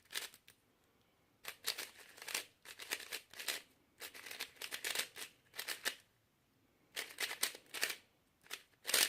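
Plastic 3x3 speedcube, a GuoGuan Yuexiao, being turned fast during a solve: quick runs of clicking, rattling layer turns with short pauses between them.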